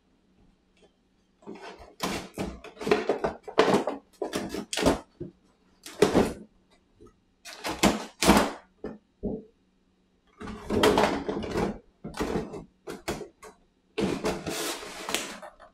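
Irregular clacks, scrapes and rustles of plastic miniatures and plastic box-insert trays being handled and fitted into a board-game box. The sounds come in short bursts with brief pauses between them.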